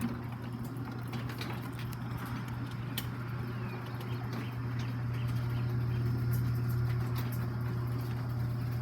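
Garage door opener motor running with a steady low hum that swells slightly about halfway through, with faint ticks and short squeaks over it.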